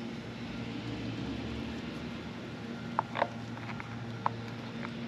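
Sharp metallic clicks and knocks from the Sportster's shift lever and mid-control linkage being fitted by hand: a quick cluster about three seconds in, then a few single clicks. A steady low background hum runs underneath.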